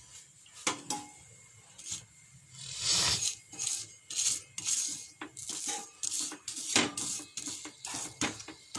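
Kitchen utensils and cookware knocking, clinking and scraping: a few sharp clicks, a longer scrape about three seconds in, then a run of short knocks and scrapes.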